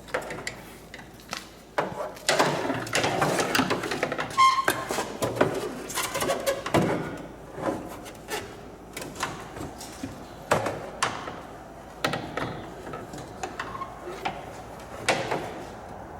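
Tools and equipment being handled: irregular knocks, clicks and clatter, busiest a couple of seconds in, with a brief squeak about four and a half seconds in.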